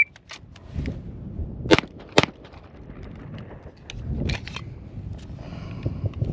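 Two shots from a Springfield Armory Prodigy pistol, about half a second apart, fired on a shot-timer start, with a few fainter clicks and knocks around them.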